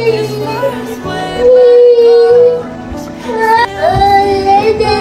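Background song with a singing voice, including a long held note a little past the first second.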